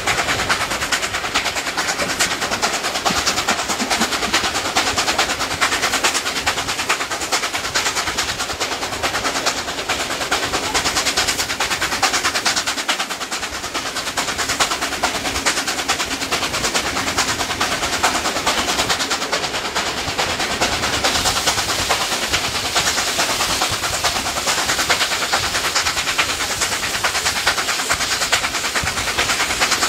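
Steam locomotive 3801, a NSW C38 class Pacific, working its train unassisted over the spiral, heard from a carriage window: a rapid, steady stream of exhaust beats over the rumble of the train.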